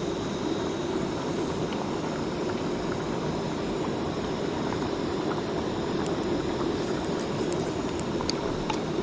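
Steady rushing of a mountain stream, with a few light clinks of a metal spoon against a metal mess tin in the second half.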